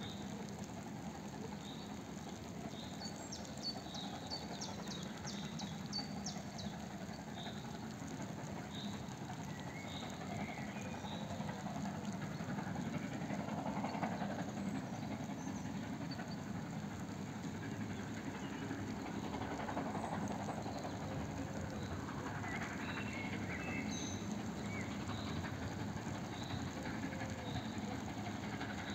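Small birds chirping in woodland over a steady low rumble, with a quick run of high ticking calls a few seconds in.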